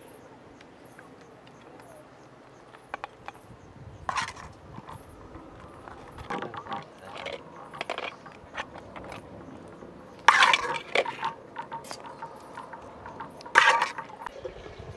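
Metal spoon clinking and scraping against a metal pan and serving tray as tomato sauce is spooned out and spread over flatbread, with scattered light clicks and two sharper clanks, one about ten seconds in and one near the end.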